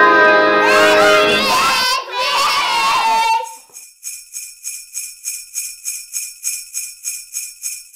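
Children shouting together as a song's last note ends, then from about three and a half seconds in, jingle bells shaken in a steady rhythm, about three shakes a second.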